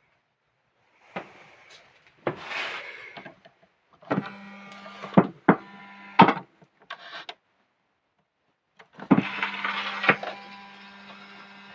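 Knocks and clicks of equipment being handled, with a steady electrical hum that comes on about four seconds in, drops out, and returns about nine seconds in.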